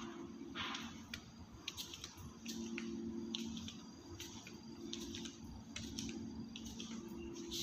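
Workshop ambience: a steady low machine hum that swells and fades every couple of seconds, with scattered sharp clicks and taps.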